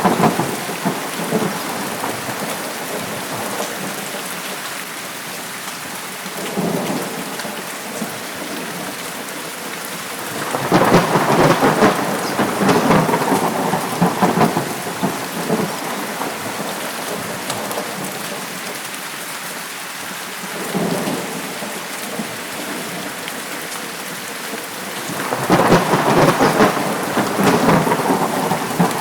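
Steady heavy rain, with rolls of thunder that swell and fade several times, the longest about ten seconds in and another near the end.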